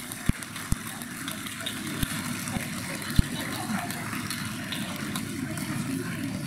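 Steady crowd noise in a large hall, with a few dull low thumps in the first three seconds or so, the loudest a little after three seconds.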